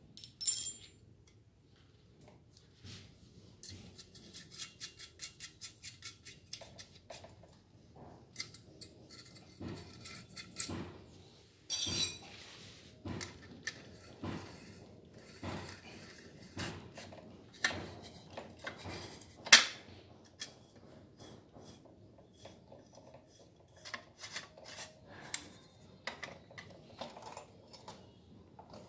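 Metal tools and parts clicking, tapping and rattling as a backpack brush cutter's engine is worked on by hand. A run of quick ticks, about four a second, starts about four seconds in, and a sharp click stands out about two-thirds of the way through.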